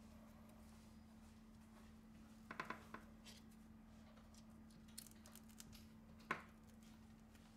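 Faint clicks and light scraping of a pry tool working a Samsung Galaxy S7 Edge's metal midframe away from its screen assembly: a few quick clicks about two and a half seconds in and a sharper click a little after six seconds, over a steady low hum.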